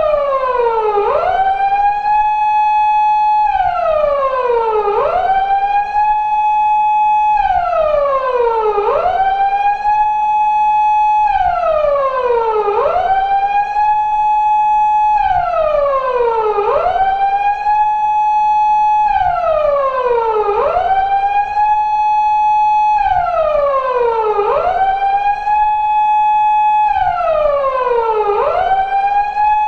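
Japanese police car siren in its wailing mode on a four-second cycle: the tone sweeps quickly up, holds its high note for about two seconds, then slides back down, over and over at an even pace. This is a reproduction of the 2000s-era Japanese patrol car siren.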